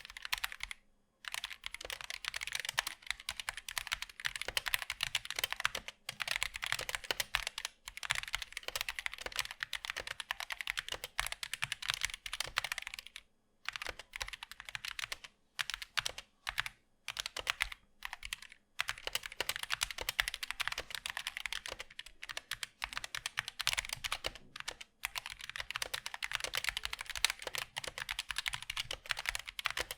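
Continuous fast typing on a Zet Blade Optical mechanical keyboard with Kailh Optical Black linear switches and ABS double-shot keycaps: a dense run of key clacks broken by a few short pauses.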